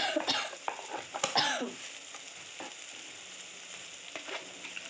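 Chopped onion, tomato and green chilli sizzling in hot oil in a wok, with a spoon clattering and scraping against the pan for the first couple of seconds, then steady frying.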